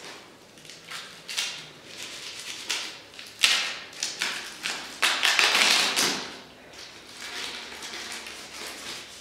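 Handling noise: irregular crinkling rustles, as of plastic being handled, with a few sharp taps. The loudest stretch is a crinkly rustle about five to six seconds in.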